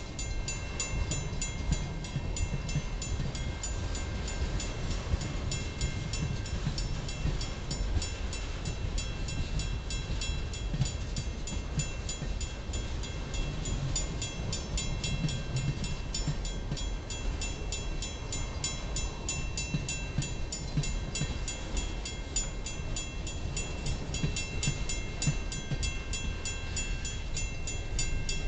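Freight train of tank cars and covered hoppers rolling past: a steady low rumble of wheels on rail. Over it, a grade-crossing bell rings in a rapid, even repeat.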